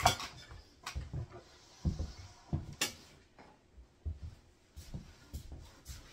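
Loaf of zucchini bread being set down and sliced with a large knife on a cutting board: a sharp knock at the very start, then irregular dull thumps and a couple of light clicks as the knife works through the loaf.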